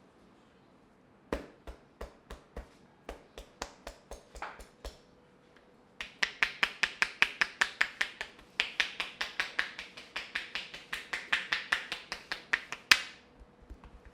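A series of sharp taps. They come loosely spaced from about a second in, then in a fast, even run of about five a second from about six seconds, and end with one louder tap near the end.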